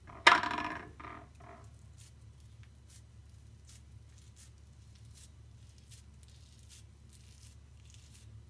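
A sharp knock with a short ring, then two softer ones, from the cucumber and the ceramic water dish. After that come faint wet squishing and small clicks as the cucumber is worked into a bulgur dough shell to hollow it out.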